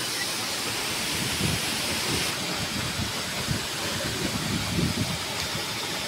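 Waterfall plunging into a rock pool: a steady rushing hiss of falling water.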